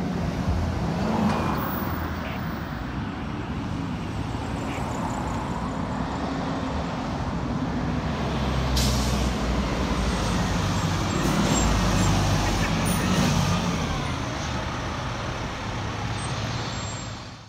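Fire engine's diesel engine running as the truck drives along a road among passing traffic, with a brief hiss of air, like an air brake, about nine seconds in. No siren is sounding.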